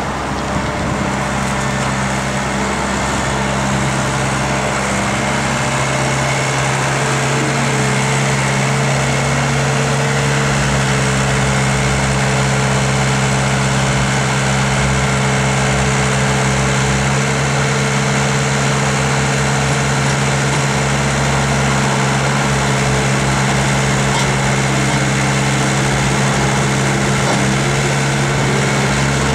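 Diesel engine of a 2003 Caterpillar 226 skid-steer loader running steadily at a constant speed.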